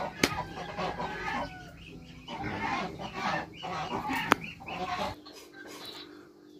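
Chickens clucking, with a couple of sharp clicks; the sound thins out about five seconds in.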